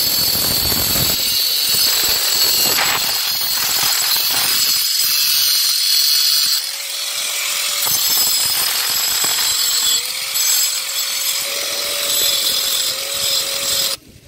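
Electric angle grinder with a cutting disc running and cutting through plastic PVC water pipe. A steady motor whine comes and goes between cuts, and the grinder is switched off near the end, stopping suddenly.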